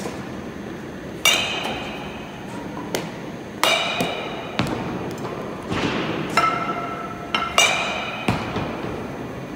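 Batting practice against a pitching machine: a bat striking baseballs four times, a couple of seconds apart, each hit a sharp crack with a metallic ping that rings out briefly. Lighter knocks come between the hits.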